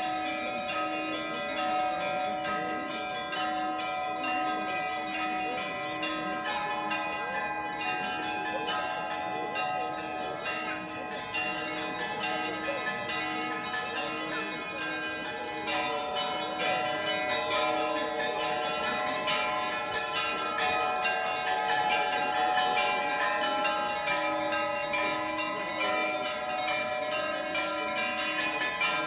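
Orthodox church bells ringing a festive Easter peal: several bells of different pitch struck together in a dense, continuous ringing. A lower bell is struck in a steady beat through the first half.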